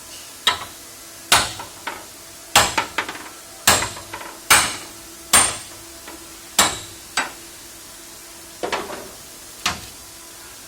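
Hammer blows on metal: about a dozen sharp strikes at an uneven pace, roughly one a second, each with a short high ring, typical of hammering out sheet metal during car body repair.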